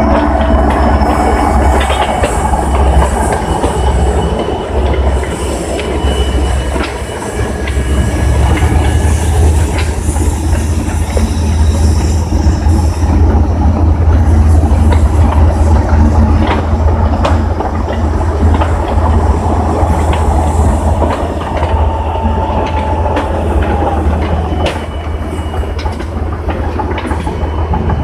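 Heavy eight-wheeled armoured vehicles' diesel engines running with a steady low drone as they roll onto steel pontoon bridge sections, with repeated metallic clanks and knocks and a few high metal squeals.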